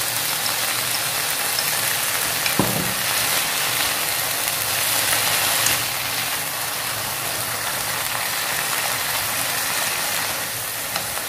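Sweet potato leaves and garlic sizzling steadily in hot oil as they are stir-fried in a pan, with a single knock about two and a half seconds in.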